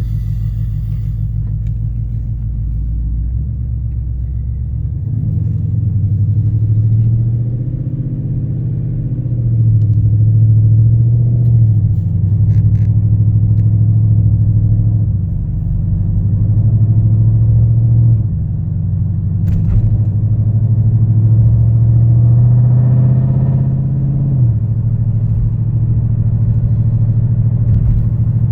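Dodge Challenger's Hemi V8 running as the car is driven, a low, steady drone whose note and loudness shift in steps several times as it speeds up and settles.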